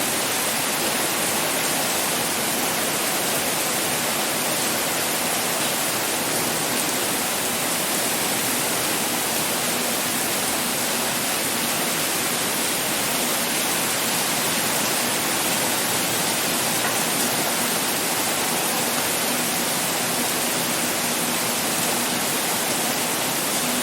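Heavy rain pouring down in a steady, dense hiss with no separate drops or gusts standing out.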